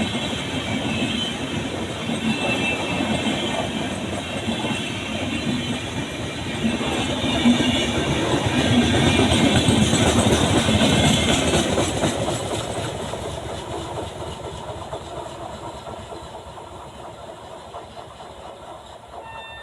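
Passenger train passing, its coaches rumbling with a rapid clickety-clack of wheels over the rail joints. It grows loudest about midway, then fades steadily as the train draws away.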